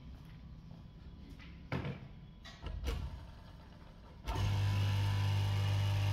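Straight-knife fabric cutting machine's electric motor switched on at the wall, starting abruptly about four seconds in and running with a steady low hum. Before it, two faint knocks in a quiet room.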